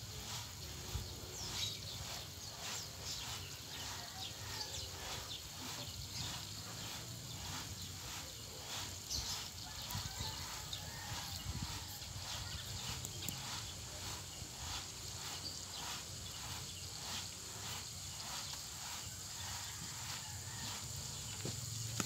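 Sand being sifted through a wire-mesh screen in a wooden frame, rocked back and forth by hand: a rhythmic rasping swish, about two strokes a second. Birds chirp now and then in the background.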